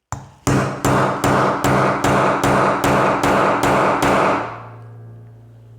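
Hammer pounding on a padlock to drive out its riveted pin: a single blow, then a quick steady run of about ten hard metal strikes, some two and a half a second. After the last blow the work table hums on with a low steady tone.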